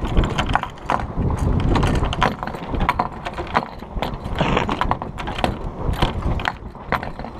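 Irregular clattering and ticking from a small sailboat's rigging and loosely luffing sails, over a low rushing noise.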